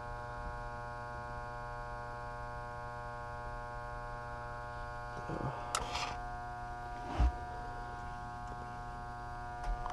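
Failed inducer motor of a York gas furnace humming steadily while powered, trying to run but not turning. Two short knocks come about six and seven seconds in, the second louder.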